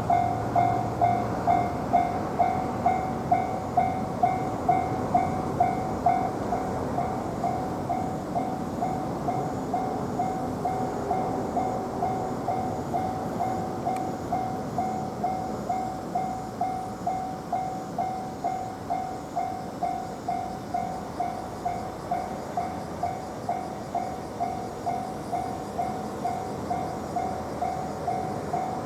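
Japanese railway level-crossing alarm bell ringing in a steady repeating ding about twice a second, louder for the first few seconds, over a low rumbling background.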